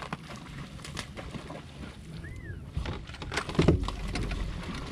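Handling noise on a bass boat's front deck: scattered light clicks and knocks, then a heavier thump about three and a half seconds in, followed by a low rumble. A single short bird chirp comes in the middle.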